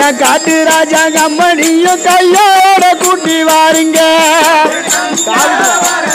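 Group of men singing a Tamil devotional bhajan (an Amman song) in held, wavering notes over a steady, fast rattling percussion beat.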